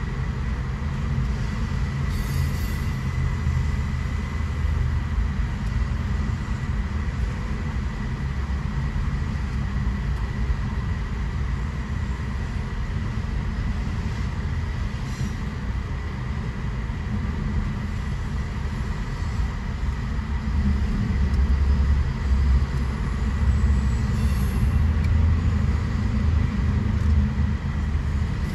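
Freight cars of a Union Pacific manifest train rolling past on the rails, autoracks and then double-stack container well cars, with a steady low rumble of wheels that grows louder about three-quarters of the way through. Heard from inside a car.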